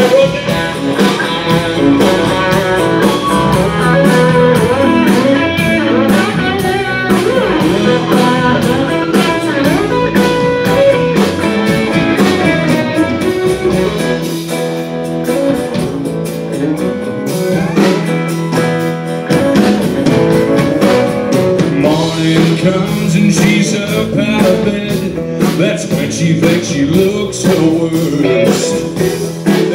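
Live country band playing an instrumental break, with a guitar lead over strummed acoustic guitar, bass and drums.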